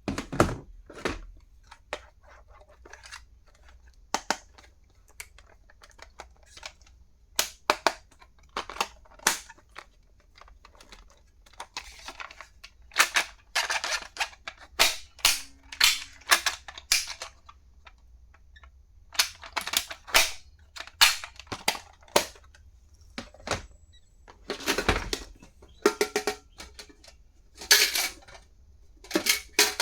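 Plastic stationery being unboxed and handled: a string of sharp clicks and taps, with short bursts of rustling packaging between them.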